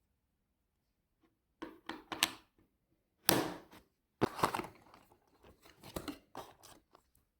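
Product packaging being opened and handled: a run of short crinkling and tearing noises, the loudest about three seconds in.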